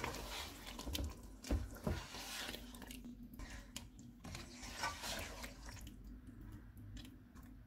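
Spatula stirring whisked yogurt into chicken masala in a pot: faint, wet squelching strokes, irregular and thinning out in the second half.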